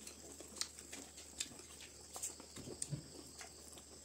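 Close-up eating sounds of people chewing rice and curry eaten by hand: faint wet mouth smacks and small clicks, about one a second.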